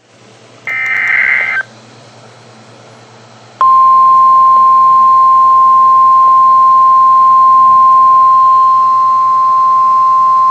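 NOAA Weather Radio Emergency Alert System transmission. It starts with a burst of about a second of SAME digital header tones, then a pause of low hiss. About three and a half seconds in, the steady single-pitch 1050 Hz warning alarm tone starts, loud and unbroken, signalling that a warning message follows.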